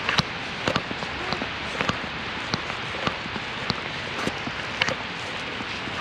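Steady hiss of falling wet snow, with irregular sharp ticks of flakes and drops striking a nearby surface.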